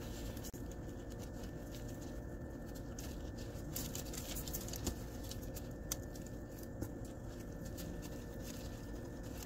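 Faint handling of raw chicken tenders and shredded cheese on aluminium foil as the cheese is pressed into the chicken by hand, with a few light taps, over a steady low room hum.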